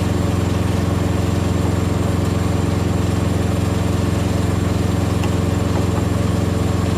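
Diesel engine idling steadily, a constant low hum that holds the same speed throughout.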